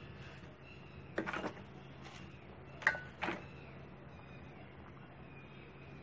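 Handling noises from the parts of a wet-and-dry vacuum cleaner, a cloth filter and its plastic tank: a short rustle just over a second in, then a sharp click and another brief rustle around three seconds. Under them runs a faint steady hum.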